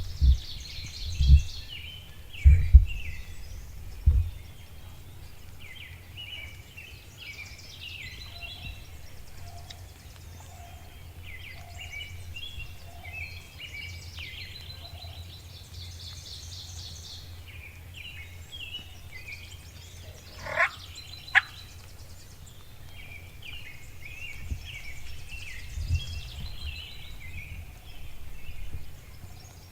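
Songbirds singing in spring woodland, with many overlapping calls throughout. A few low thumps come in the first four seconds, and two quick sharply rising calls come about two-thirds of the way through.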